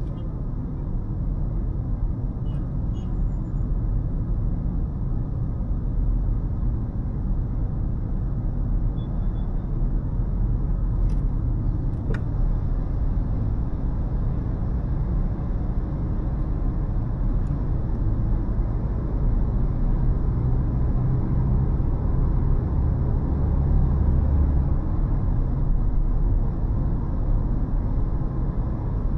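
Car driving along a city road: a steady, low rumble of engine and tyre noise, with a couple of faint clicks near the middle.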